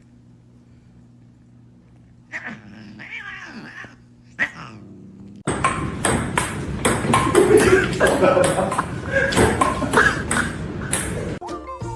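A cat yowling in drawn-out, bending calls, followed about five seconds in by a louder, busier stretch of cat noise mixed with sharp knocks. The noise cuts off abruptly near the end.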